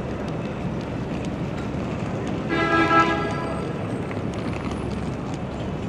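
A vehicle horn honks once, a single held tone under a second long about two and a half seconds in, over steady city street traffic noise.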